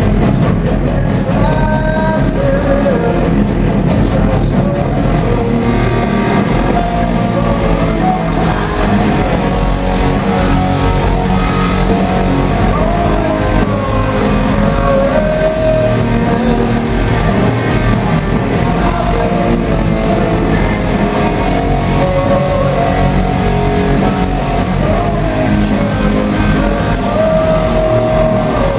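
Rock band playing live, heard from the audience: electric guitar, bass and drums under a male lead vocal.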